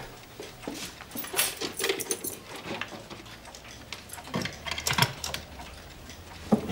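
Small wooden drawers in a cabinet being pulled open and rummaged through by hand: scattered clicks, knocks and metal clinks, in two busier spells, the loudest a little before the end.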